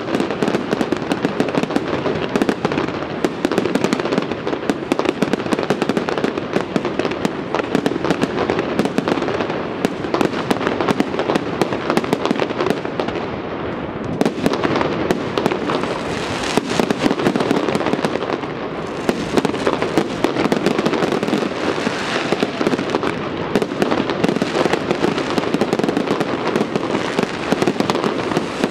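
Fireworks display going off continuously: dense, rapid crackling and popping of shells bursting, packed together without a break.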